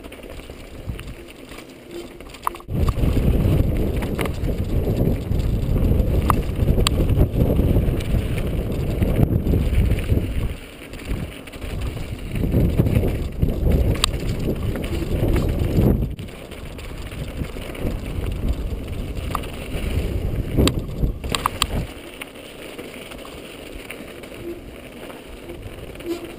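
Mountain bike rolling fast down a rocky dirt singletrack, heard through a body-mounted action camera: tyres running over dirt and loose stones, wind rumbling on the microphone, and the odd sharp click or rattle from the bike. The rumble is heavy from about three seconds in and eases after about sixteen seconds.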